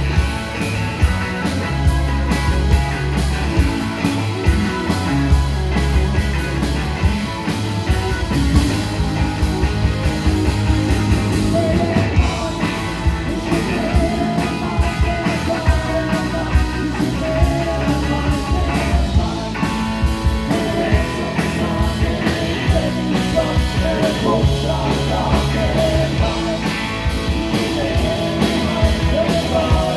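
Live rock band playing: electric guitars, bass guitar and drums with a steady beat, and sung vocals.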